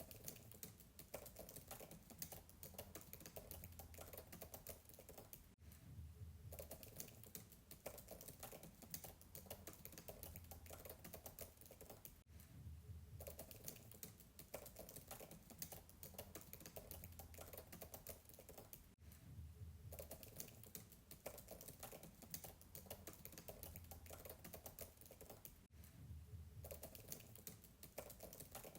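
Fast typing on a MacBook keyboard, a dense stream of soft keystrokes heard faintly from a distance, with short pauses about every seven seconds.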